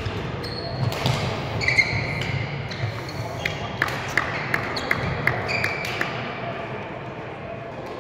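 Badminton rally: rackets hitting the shuttlecock with sharp cracks that quicken to about three a second in the middle, and court shoes squeaking on the hall floor. The play tails off in the last couple of seconds.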